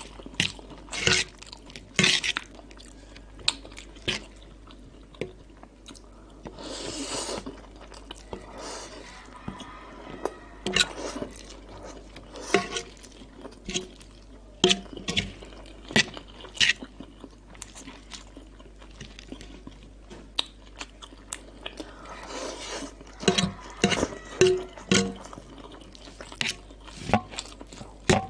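Close-miked eating: Indomie instant noodles mixed with Cheetos being bitten and chewed, with sharp, irregular crunches and wetter chewing. There is a longer wet stretch about seven seconds in and another past the twenty-second mark.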